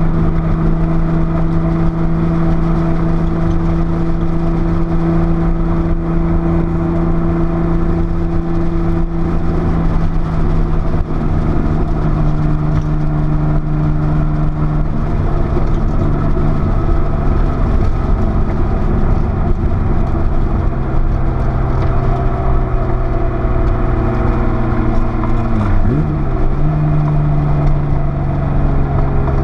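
Porsche 930 Turbo's air-cooled turbocharged flat-six running hard on track, its note mostly steady with slow drifts in pitch. Near the end the pitch drops sharply and quickly climbs back.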